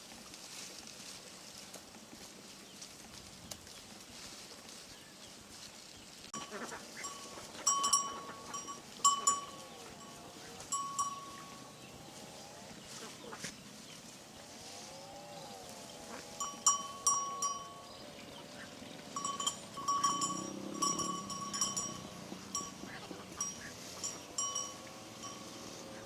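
Goats bleating in long, wavering calls, while a livestock bell clinks in short, irregular strokes from about six seconds in.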